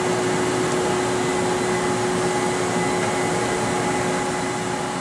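Tuda Jumbo heavy-duty engine lathe running under power: a steady machine hum with a few held tones.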